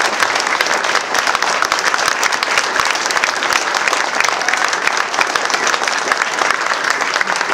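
A crowd of guests applauding: loud, dense, steady clapping.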